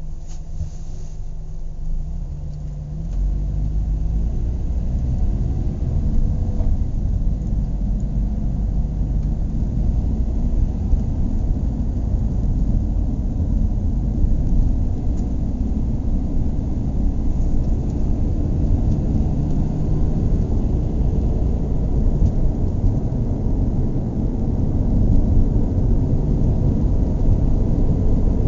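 Car engine idling, then revving up about three seconds in, its pitch climbing over a few seconds, and running on with a steady low rumble.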